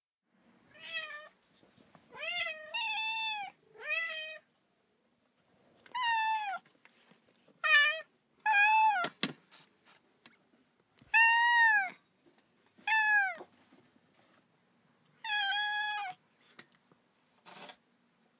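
Cat meowing repeatedly: about ten short meows with pauses between, each rising and then falling in pitch.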